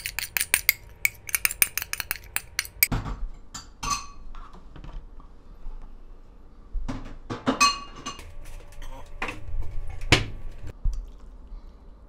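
Spoon and ceramic bowl clinking as thick chili-pepper sauce is scraped out into a dish: rapid clinks for about three seconds, then a few single ringing clinks and one knock of crockery near the end.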